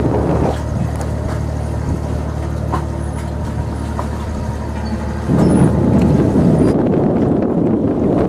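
Steady low drone of a passing traditional sailing ship's engine as it motors by. About five seconds in, this gives way abruptly to louder wind buffeting the microphone.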